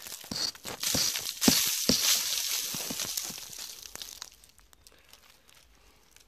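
Dry leaf litter and twigs crackling, crunching and rustling as they are disturbed. The sound is loudest in the first three seconds and then fades to a faint crackle.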